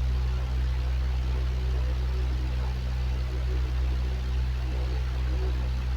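Electric fan running steadily: a constant low motor hum under an even whoosh of moving air.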